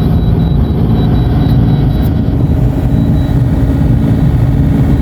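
An engine running steadily with a loud low rumble.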